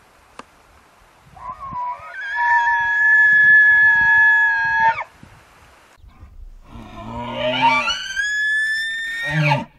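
Bull elk bugling twice: first a long, steady, high whistle, then a call that slides up from a low tone into a high whistle, holds, and drops off at the end.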